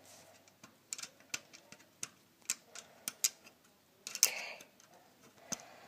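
Irregular small clicks and taps of screws and a T10 Torx screwdriver being worked on an Xbox 360 slim's casing, with a brief scraping rustle about four seconds in.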